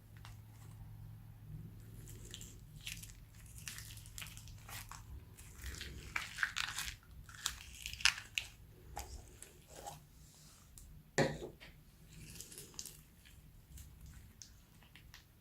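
Slime being squished and kneaded by hand, giving irregular wet crackles, clicks and pops that come thickest in the middle, with one louder snap near the end.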